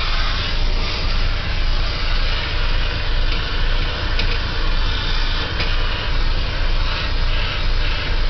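Vacuum cleaner running steadily while sucking up dust and cobwebs, with a couple of faint clicks in the middle.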